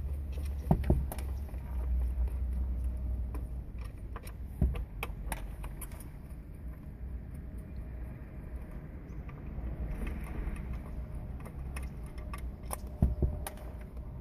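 Scattered clicks, taps and small knocks of plastic and small metal parts being handled and unscrewed while taking apart a car instrument cluster, with sharper knocks about a second in, near the middle and near the end, over a steady low hum.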